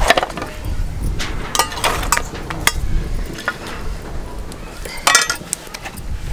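Scattered clinks and knocks of a flat metal spatula on an iron griddle and of a steel plate, as a cooked jowar roti is lifted off and set down, with one louder clatter about five seconds in.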